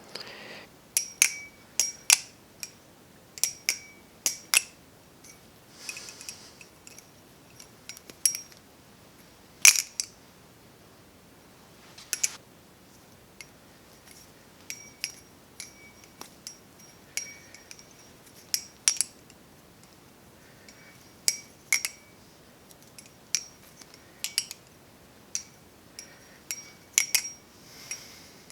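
Hazetac Channel balisong being flipped: the handles and blade clack and clink at irregular intervals, some in quick pairs, each click ringing briefly with a bright metallic tone.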